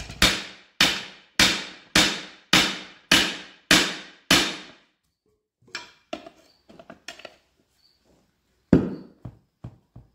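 Hammer blows on steel as a Firestone RH-5 split-rim truck wheel is worked apart: eight hard strikes in a steady rhythm, a little under two a second, each ringing briefly. Then a few light clinks, and one more hard blow near the end.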